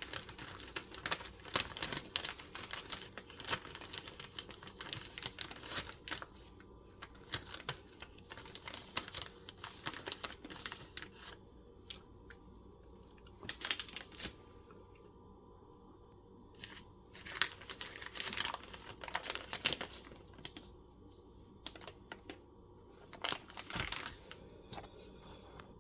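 Crinkling and tearing handling noise made of many small clicks and rustles. It is busiest in the first six seconds, then comes in short bursts with quieter gaps between.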